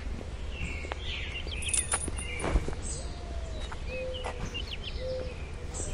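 Birds chirping in short calls, with a few brief whistled notes, over a steady low rumble of background ambience and a few faint clicks.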